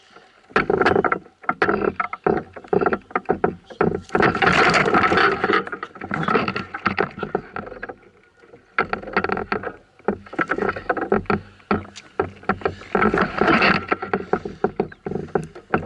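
Irregular knocks, clicks and clatter on a canoe's hull while a caught fish is handled and unhooked, with two longer stretches of rustling noise.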